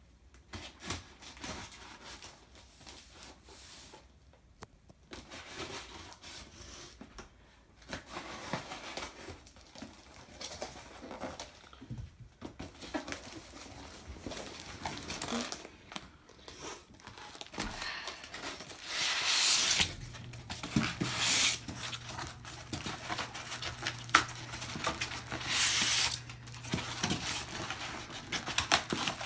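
Cardboard box and plastic wrap being torn open and pulled off a new gumball machine: irregular crackling, crinkling and tearing, with louder rustles later on. A low steady hum comes in about two-thirds of the way through.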